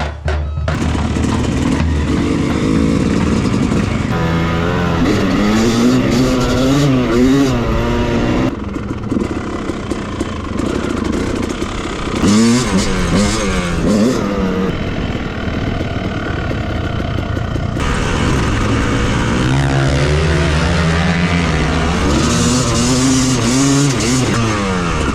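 Yamaha YZ250 two-stroke motocross engine with its stock exhaust, ridden hard: the revs climb and drop repeatedly through the gears in several runs, with steadier stretches in between.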